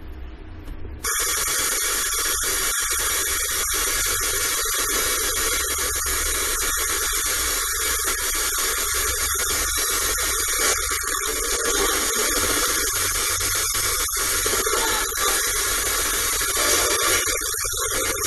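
Livstar portable radio hissing with loud static from its speaker, switching on suddenly about a second in: the receiver is tuned between stations, with no station coming in.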